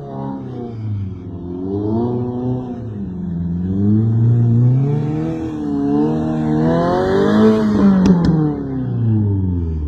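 Straight-piped Subaru WRX (VB) turbocharged 2.4-litre flat-four under repeated throttle, its note rising and falling several times and climbing highest about seven seconds in before dropping away. Two short sharp clicks come just after the peak.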